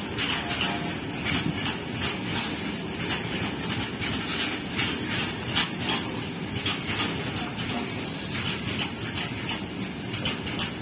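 Freight train of open-top goods wagons rolling past, a steady rumble of wheels on rail with a quick, uneven run of sharp clicks as the wheels cross rail joints.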